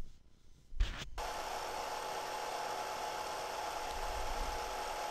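A click about a second in, then a steady whirring hiss with a faint hum: an 8 mm film projector running.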